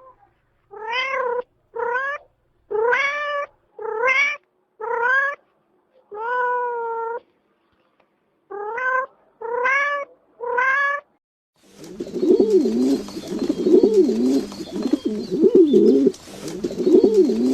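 A domestic cat meowing, nine separate meows of about half a second to a second each, the longest one drawn out. About twelve seconds in the meowing gives way to a pigeon cooing over and over with a steady background hiss.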